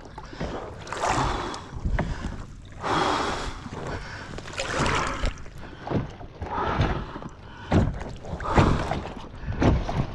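Water splashing and sloshing against a kayak's hull in irregular surges, as a person in the water struggles to pull himself in beside it.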